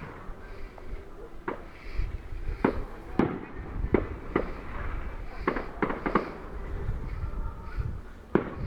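Fireworks bursting: about ten sharp bangs at irregular intervals, several in quick succession about six seconds in, over a steady low rumble.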